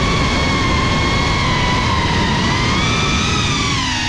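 GEPRC CineLog35 FPV quadcopter's motors and propellers whining, recorded from the GoPro on the drone. The pitch wavers with throttle and dips about four seconds in, over a low rumble of wind.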